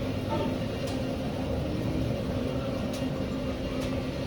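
Steady low mechanical hum with a constant drone, and a few faint ticks over it.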